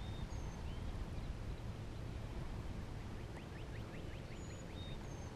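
Steady low wind noise on the microphone, with faint, thin bird chirps now and then and a quick run of about ten chirps about three and a half seconds in.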